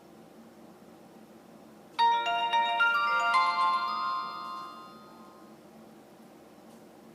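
Alcatel A205G mobile phone playing its power-on jingle through its small speaker: a short melodic chime of several quick, overlapping notes that starts about two seconds in and fades out over about three seconds.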